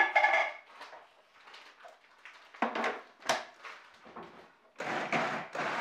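Clunks and clicks as a food processor's plastic lid and pusher are handled. About five seconds in, its motor starts and runs steadily, pureeing chopped tomatoes.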